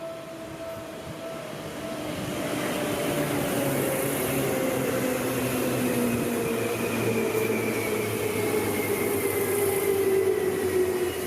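Electric commuter train running past on the track, with a rumble that builds over the first few seconds and then holds. Its whine falls slowly in pitch.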